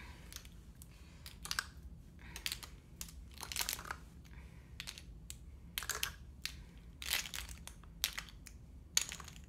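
Lipstick tubes clicking and rattling against a plastic storage bin and grid organizer as they are picked out and set down, in irregular short clicks and brief clatters.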